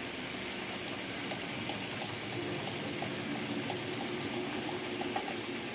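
Peach brandy pan sauce simmering in a skillet: a steady bubbling hiss with small scattered pops.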